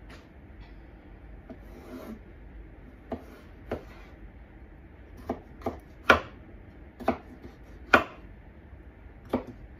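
Kitchen knife cutting cucumber into strips on a wooden cutting board: about eight sharp, irregular knocks of the blade on the board from about three seconds in, the loudest about six and eight seconds in.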